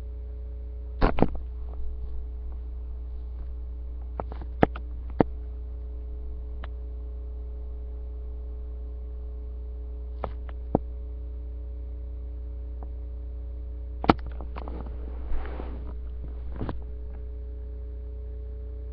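Steady electrical mains hum picked up by a webcam microphone, with scattered sharp knocks and a brief rustle from handling close to the microphone.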